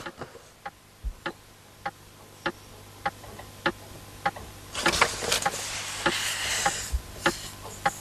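Clock ticking steadily, a little under two ticks a second, over a low hum. A soft rushing noise swells for a couple of seconds around the middle.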